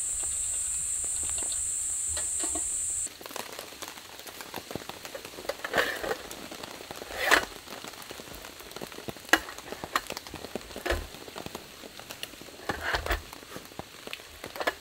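Insects trilling in a steady high-pitched chorus that cuts off abruptly about three seconds in. After the cut comes irregular crackling with scattered sharp pops, the loudest pop near the middle.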